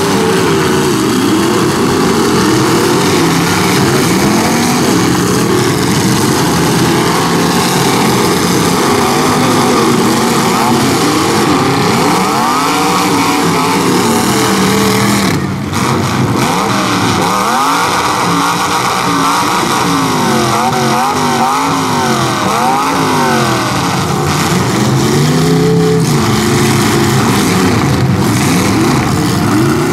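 Several demolition-derby pickup truck engines revving hard at once, their pitches rising and falling over each other as the trucks push and spin their wheels in the dirt; the engine noise dips briefly about halfway through.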